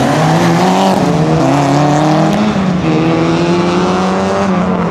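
Mitsubishi Lancer Evolution IX rally car's turbocharged four-cylinder engine accelerating hard. Its pitch climbs, drops at a gear change about halfway, climbs again, then falls away near the end.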